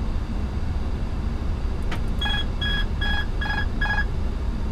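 Airbus A340-300 flight deck during approach: a steady rumble of airflow and engines, with a click about two seconds in followed by five short electronic beeps of one pitch, evenly spaced.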